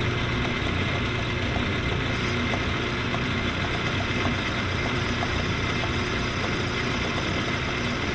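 Metal lathe running steadily, its motor and spindle humming while a cutoff tool cuts a groove into the spinning metal part, with faint light ticks now and then.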